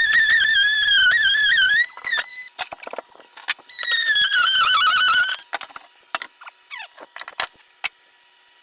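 A power saw cutting through bathroom subfloor, giving a high, wavering whine in two runs of about two seconds each that stop abruptly. Scattered knocks and a few short falling squeaks follow in the second half.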